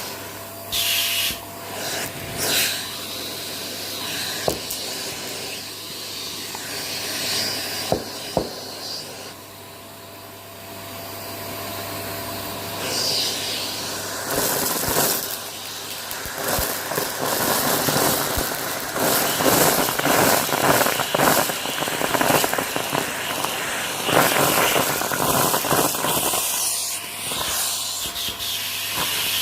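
Close-up crunching and crackling of something brittle being crushed: scattered crunches at first, then dense continuous crackling through the second half, over a faint steady hum.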